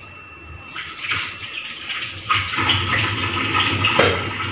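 Kitchen tap running water into a sink while a pot is rinsed, starting about a second in. A couple of knocks from the pot being handled in the basin.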